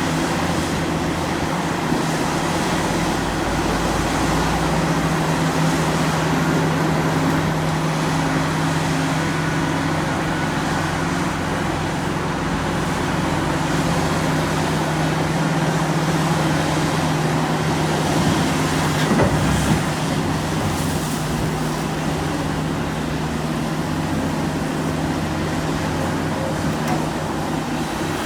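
Heavy diesel earthmoving machinery, an excavator at work, running steadily with a constant low engine drone and a brief knock about two-thirds of the way through.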